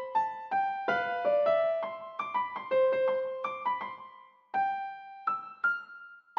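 Background music: a soft keyboard melody of single struck, fading notes, growing sparse over the last two seconds.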